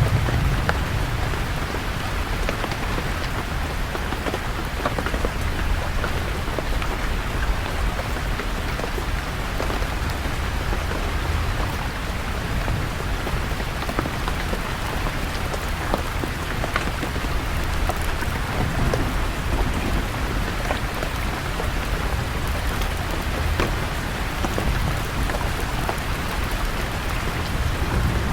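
Steady rain falling, with scattered sharp drop ticks, over a low rumble of distant thunder that swells now and then.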